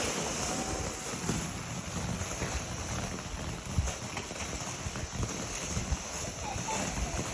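Wind buffeting the microphone: a steady rushing noise with an uneven low fluttering rumble.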